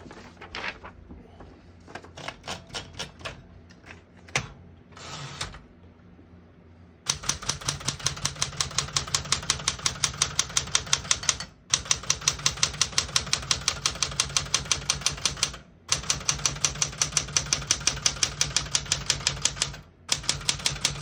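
Keys of a 1967 Smith-Corona Super Sterling manual portable typewriter being struck. A few scattered clicks come first, then, about seven seconds in, fast even typing at around six strokes a second in long runs with three short breaks.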